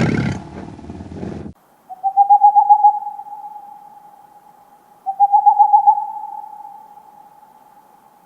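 A loud noisy sound that cuts off suddenly about one and a half seconds in, then two hooting calls about three seconds apart. Each call is a quick trill at one steady pitch that dies away slowly.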